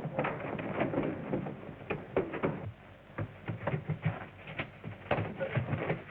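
A rapid, irregular run of knocks and thumps, denser in the first few seconds and sparser after, on a muffled, narrow old soundtrack.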